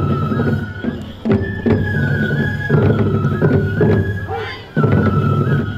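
Japanese folk festival music for a tiger dance: a bamboo flute plays a high melody in long held notes over steady taiko drumming. The music drops back briefly near the end, then the flute phrase starts again.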